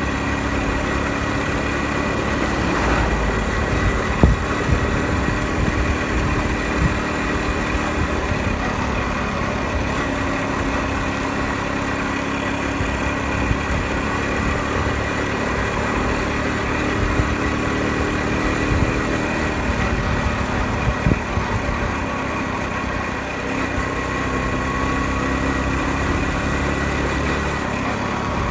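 Honda Super Cub 50's small single-cylinder four-stroke engine running steadily on the move, its note shifting slightly, over a steady rush of road and wind noise.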